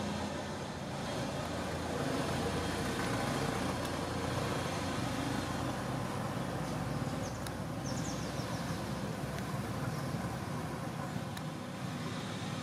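Steady low rumble of motor vehicle traffic, with a few faint high chirps about seven seconds in.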